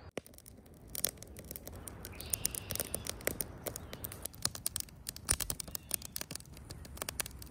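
Wood campfire crackling, with irregular sharp snaps and pops several times a second.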